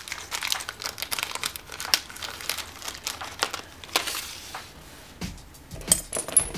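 Small plastic zip-lock bag of ball bearings crinkling as it is handled, with a few light clicks near the end.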